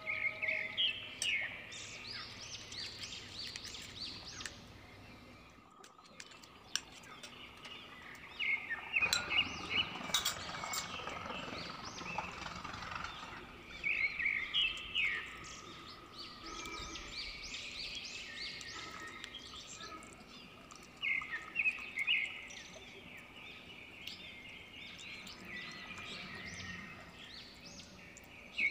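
Birds singing in bursts of rapid chirps every few seconds over a steady background hiss.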